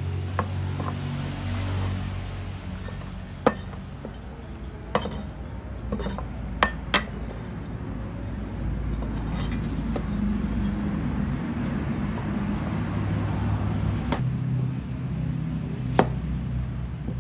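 Cleaver knocking on a wooden chopping board while cutting vegetables: about seven sharp, scattered knocks, the last as it slices a potato near the end. Under them runs a steady low rumble.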